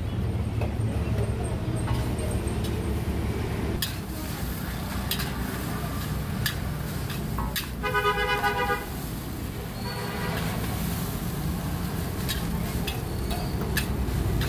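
Steady low roar with scattered metal clacks, typical of a large wok of fried rice being stirred over a gas burner. About eight seconds in, a vehicle horn honks for about a second, with a fainter honk shortly after.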